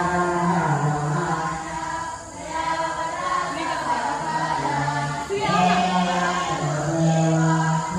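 Buddhist monks chanting prayers together in unison, low voices holding each note for about a second before stepping to the next.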